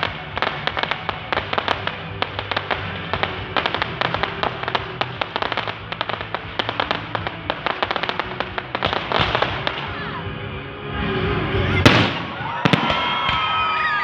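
Fireworks crackling in a dense rapid stream of pops. Near the end comes one loud bang, followed by whistling tones that fall in pitch.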